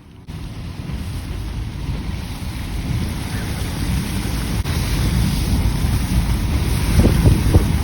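Steady low rumbling noise of wind buffeting the microphone, cutting in abruptly just after the start and slowly growing louder, with a few stronger gusts near the end.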